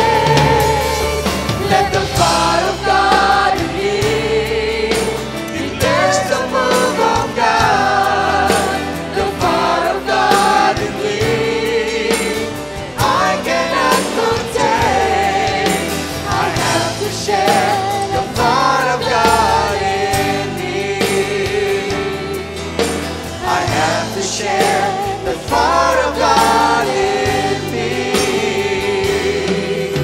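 Live worship band playing a gospel praise song, with acoustic guitar, drums and keyboard under many voices singing together: the worship leaders and the congregation.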